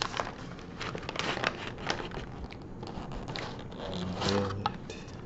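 Paper sandwich bag crinkling and rustling in the hands as a wrapped chicken sandwich is pulled out of it, in irregular crackles.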